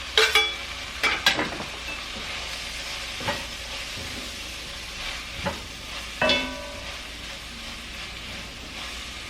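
Mushrooms and garlic sizzling in a frying pan as they are stirred, with a utensil knocking against the pan several times. The loudest, ringing knocks come at the start and about six seconds in.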